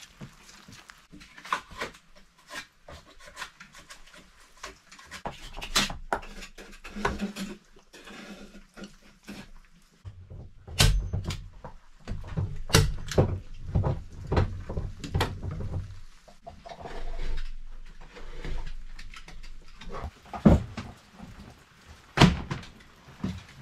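Hand-tool work on a wooden door and plank floor: a run of sharp clicks and knocks as felt insulation and wooden battens are fastened to the door, with a busier stretch of knocking and handling in the middle. Near the end a roll of floor covering is handled and dropped onto the boards, giving a couple of loud knocks.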